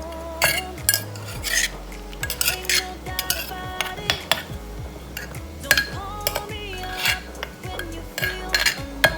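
Irregular clinks and knocks of kitchen utensils against a bowl or mortar while som tam salad is mixed, a few strikes a second, over soft background music.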